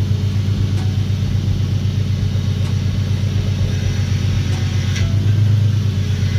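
Infiniti Q60's 3.7-litre VQ37VHR V6 running steadily at idle, a low even hum, while the steering is turned full lock each way to bleed air from the newly replaced power steering pump. It gets slightly louder about five seconds in.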